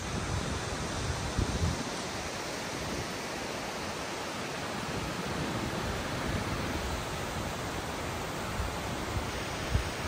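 Steady rush of a mountain waterfall and stream, with wind buffeting the microphone in the first couple of seconds and briefly near the end.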